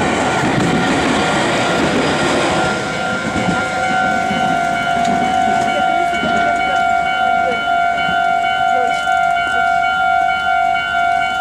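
A train passing over a level crossing, its running noise dying away about three seconds in. After that the crossing's electronic warning bell rings on steadily, in a repeating, pulsing tone.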